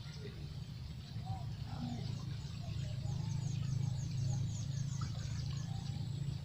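Birds calling: a quick run of short, high, downward-slurred notes in the middle, with scattered lower chirps around it, over a steady low rumble.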